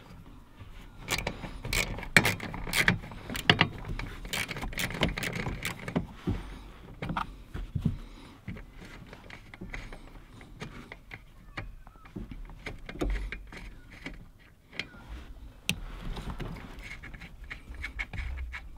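Metal tool clicks and clinks as a socket wrench undoes the bolt holding the master cylinder to the brake booster, in quick irregular bursts for the first several seconds, then scattered clicks.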